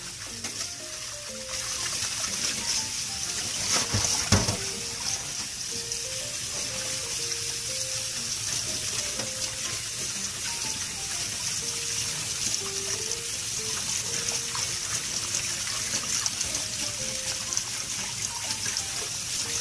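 Kitchen tap running into a glass bowl in a stainless steel sink as hands knead and squeeze preserved mustard greens under the stream, water splashing and trickling steadily. A brief sharp sound about four seconds in is the loudest moment. Quiet background music with a simple melody plays underneath.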